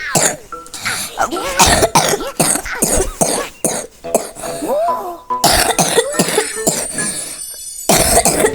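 A person coughing over and over in a long fit of short, harsh coughs, with a brief lull shortly before the end.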